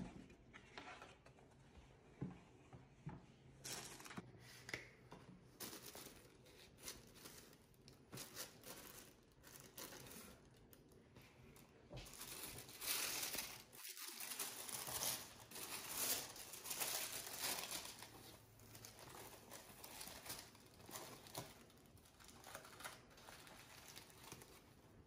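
Tissue paper crinkling and rustling as a cardboard shoebox is unpacked, with light knocks from handling the box; the rustling is busiest and loudest about halfway through.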